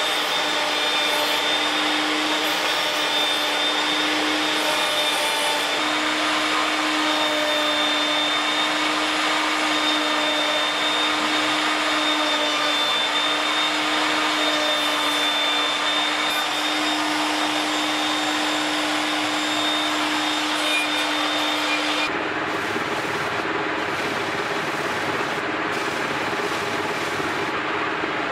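Table-mounted router running steadily with a constant whine as it trims the edge of a laminated wooden drum hoop with a flush-trim bit. About 22 seconds in, the whine gives way to the rougher, even noise of a large disc sander grinding the edge of a hoop.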